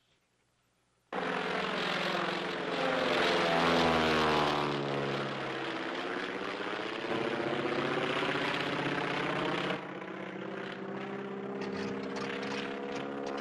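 Single-engine propeller light plane droning in flight, its engine pitch dipping and then rising again as it passes. It starts suddenly about a second in, after near silence.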